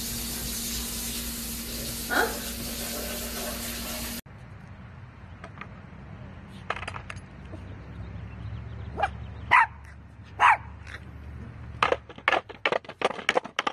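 A steady hiss that stops abruptly, then a dog with a skateboard on concrete: a few short, loud barks, followed near the end by a quick run of knocks as the skateboard clatters down concrete steps.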